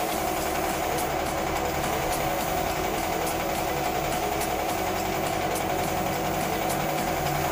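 Air compressor running steadily, with the hiss of a compressed-air spray gun spraying paint.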